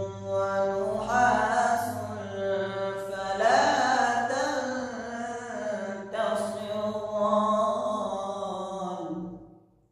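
An unaccompanied voice chanting a slow melody of long, drawn-out notes, fading out near the end.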